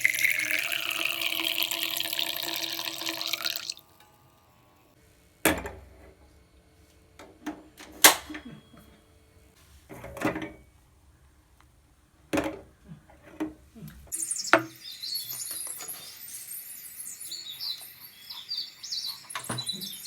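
Water running from a tap or pouring into a vessel for about three and a half seconds, then stopping suddenly. After that come several separate clinks and knocks of kitchen utensils, and a faint high twittering near the end.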